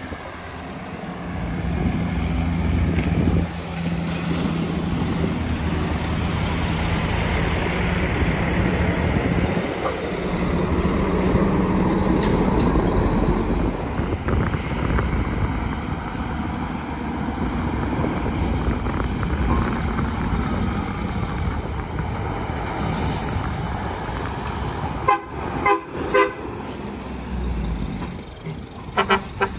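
Heavy diesel trucks labouring up a steep grade, engines running under load. Near the end a vehicle horn sounds in several quick short toots, twice.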